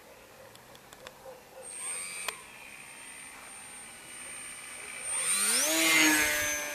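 RC foam airplane's motor and propeller whining, faint at first, then rising in pitch and growing loud about five seconds in as the plane comes close overhead. The pitch then holds at the higher level.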